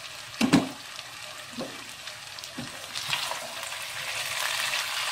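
Sliced potatoes sizzling in a hot wok, stirred with a wooden spatula. A loud clunk about half a second in and two lighter knocks, then the sizzle grows louder from about three seconds in.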